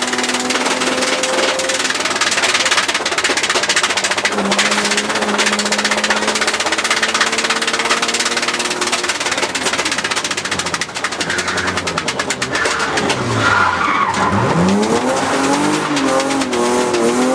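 BMW E36 rally car at full speed, heard from inside the cabin: the engine holds steady high revs under loud road and tyre noise. About ten seconds in the revs fall away, then from about fourteen seconds they climb steeply again and waver as it accelerates hard.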